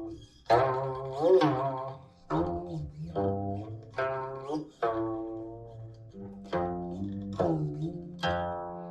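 Guqin played solo: single plucked notes that ring and fade, about ten in a slow, unhurried line, several bent by a sliding finger so that their pitch glides up and down as they decay.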